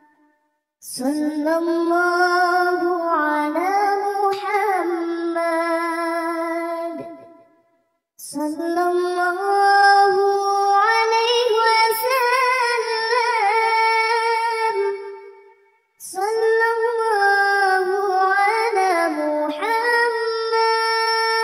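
A high, childlike voice singing a shalawat, devotional praise of the Prophet, unaccompanied, in three long drawn-out, ornamented phrases with short breaks between them.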